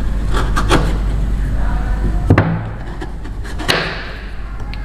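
Kitchen knife hacking into a hard block of palm sugar on a wooden cutting board: about six sharp knocks of the blade striking through to the board, the loudest a little over two seconds in.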